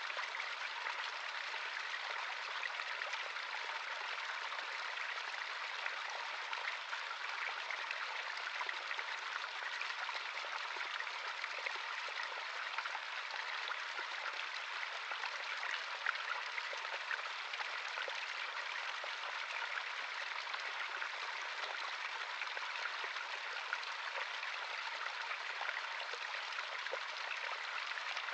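Natural stream of running water flowing steadily over stones, a constant burbling rush with fine splashes and trickles.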